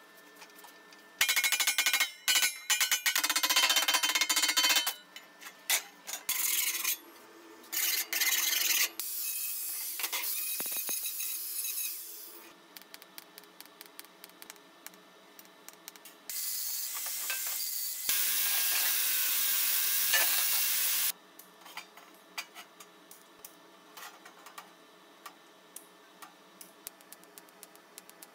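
TIG welding arc hissing on thin sheet steel. It switches on and off abruptly in a string of short bursts through the first half, typical of tack welds, then runs steadily for about five seconds past the middle.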